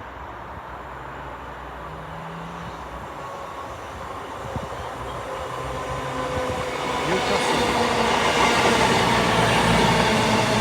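Diesel train approaching through the station, its engine running with steady tones and the wheel and rail noise growing steadily louder, loudest in the last few seconds.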